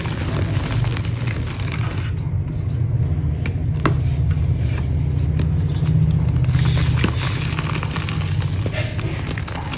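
Lumps of dry yellow mud crumbling under the fingers, with scattered crackles and scrapes over a steady low rumble.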